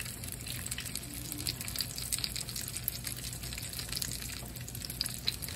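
Food frying in hot oil in a pan: a steady sizzle with many small crackles.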